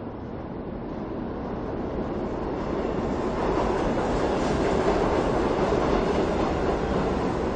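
Subway train approaching on the tracks, its rumble growing steadily louder and peaking about five seconds in.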